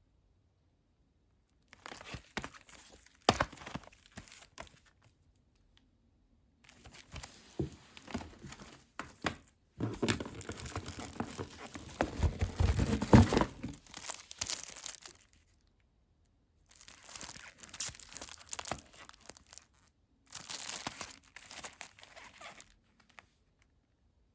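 Packaging being torn open and crinkled by hand, with sharp clicks and knocks. It comes in four stretches with silent gaps between them, loudest in the longest stretch near the middle.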